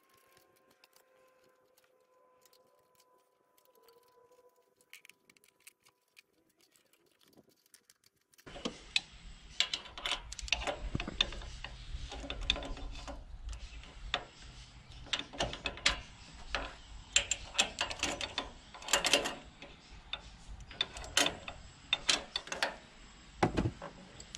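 A faint siren dies away in the first few seconds, then near silence. About eight seconds in, irregular metallic clicks and clinks start and go on: hand tools and fittings handled while throttle bodies are fitted and aligned on a Porsche flat-six engine.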